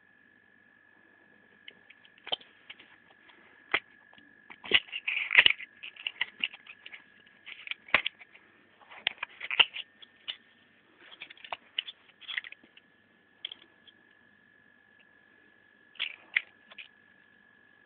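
Clear plastic blister pack of a microSD card being handled and torn open: irregular crinkles, clicks and snaps in clusters, busiest in the middle, with a short flurry again near the end.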